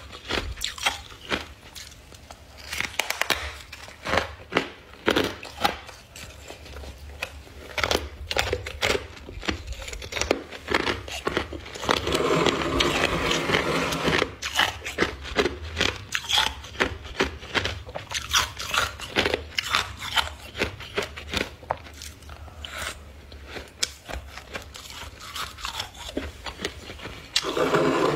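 Close-up crunching of ice being bitten and chewed: humidifier frost and hard clear ice chunks breaking into many sharp cracks in quick succession. There are denser stretches of grinding crunch a little before halfway and again right at the end.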